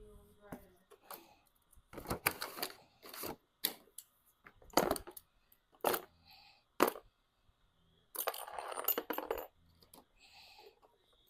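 Metal parts of a new interior door handle set clinking as they are handled and set down: a string of sharp separate clinks, then a denser rattle of over a second about eight seconds in.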